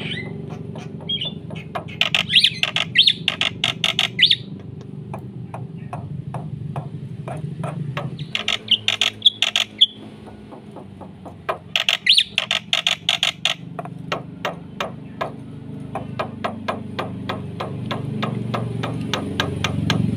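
Black-winged myna (jalak putih) in full, vigorous song: long runs of rapid, sharp repeated notes broken three times by loud, dense chattering bursts, over a steady low hum.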